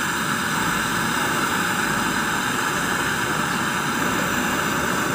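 Gas brazing torch flame burning with a steady, even rushing hiss as it heats a refrigerator's capillary tube joint at the filter drier for brazing.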